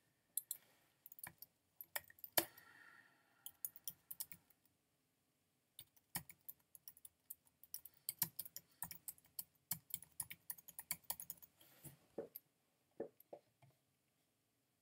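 Typing on a computer keyboard: runs of quiet key clicks, with a short pause about a third of the way in and sparser keystrokes near the end.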